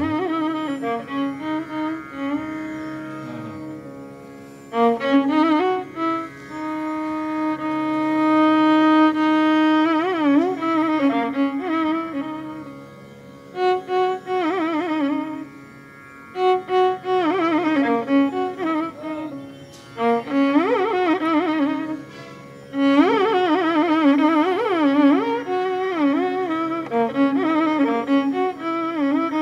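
Instrumental Carnatic music: a violin plays a melody of long held notes and quick wavering pitch ornaments over a steady low drone. It quietens and comes back in several times.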